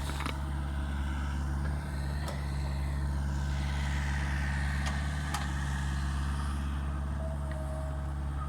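Mini excavator's diesel engine running steadily, with a few sharp clicks over it.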